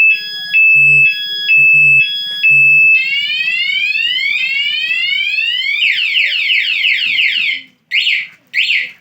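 Motorcycle remote anti-theft alarm sounding through its siren speaker, set off by touching the locked bike: a few alternating two-tone beeps, then long rising whoops, then a run of fast falling chirps that break into separate short chirps near the end.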